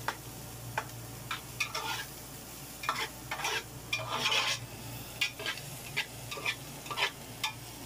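Metal spatula scraping and clinking against an aluminium pot as chopped onions and vegetables are stirred while they sauté, in irregular strokes, with frying sizzle under them.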